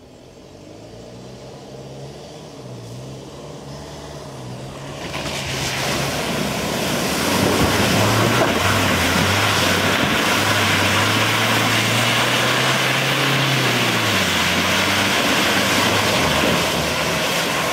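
Volkswagen Amarok ute's engine revving hard as it drives through a muddy bog, growing louder as it nears, with a dense hiss of tyres churning mud and water from about five seconds in. The revs hold high and drop away about three-quarters of the way through; onlookers judge the revs way too high.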